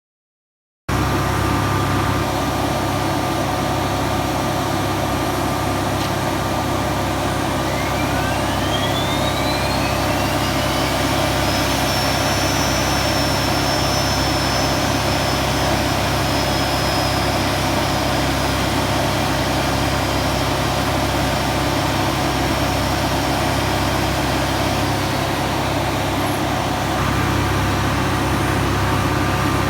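GE T700 turboshaft engine of an NH90 helicopter running with a loud steady noise, during a gas-turbine wash for performance recovery. About seven seconds in, a turbine whine rises steeply in pitch, then holds high and fades away near the end.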